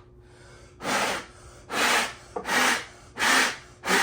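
Five rough rubbing strokes in a steady rhythm, a little under a second apart, as parts are scrubbed or wiped clean.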